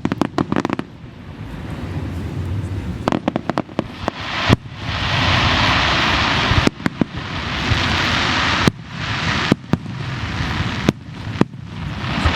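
Fireworks display: aerial shells bursting in sharp bangs, several in quick clusters, with stretches of dense, steady hiss between the bursts.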